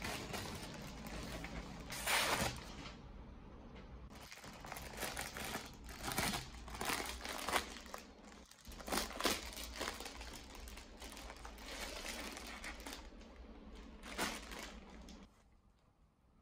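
Plastic packaging crinkling as it is handled: a plastic mailer bag and a clear poly bag holding clothes rustling in irregular bursts. The rustling dies away near the end.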